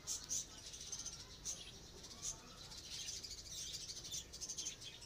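Faint, short, high-pitched chirps like small birds, scattered throughout, with a run of light clicks a little past halfway.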